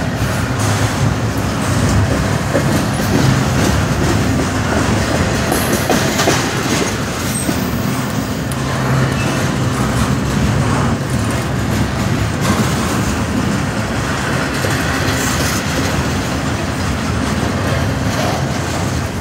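Double-stack intermodal container train passing, with its freight cars' steel wheels running steadily on the rails.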